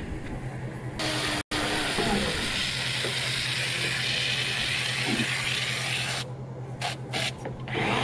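Aerosol can of expanding spray foam hissing steadily as foam is sprayed into a panel joint, stopping about six seconds in.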